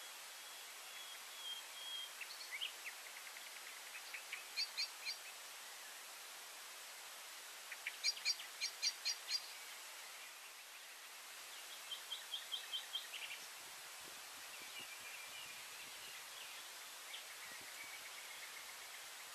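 Small songbirds singing in the background: several short phrases of rapidly repeated high notes, the loudest about eight seconds in, over a steady outdoor hiss.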